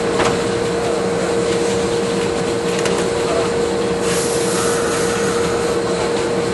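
Electric train standing at a station platform, giving a steady hum with one constant tone, along with general station noise. There is a faint click just after the start and another near the middle, and a brighter hiss joins about two-thirds of the way in.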